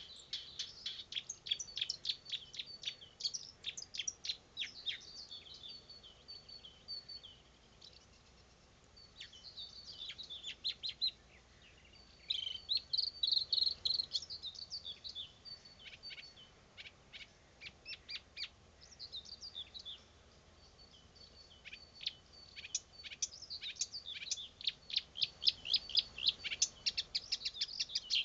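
Nightingale singing: phrases of rapid clicks, trills and repeated high whistled notes, broken by short pauses about eight and twenty seconds in.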